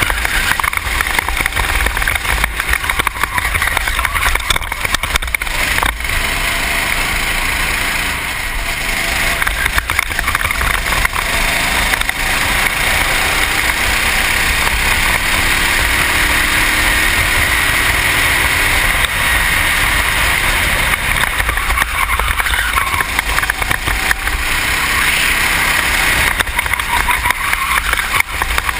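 Racing kart engine running at race pace, heard from a helmet-mounted camera with heavy wind buffeting over it. The engine note climbs about halfway through as the kart accelerates down the straight.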